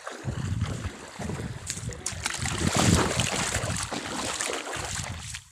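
Wind buffeting the microphone over the sound of pond water sloshing, loudest about three seconds in.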